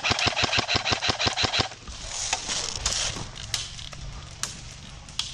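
Airsoft electric gun firing a rapid full-auto burst, a fast even rattle of gearbox-driven shots that stops about a second and a half in, followed by a few scattered single clicks.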